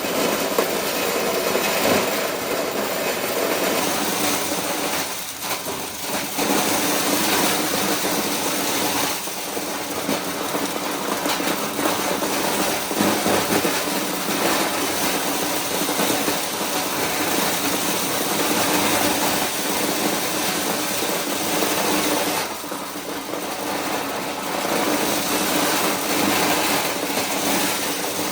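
Motor-driven corn kernel separating machine running steadily, with the loudness dipping briefly twice.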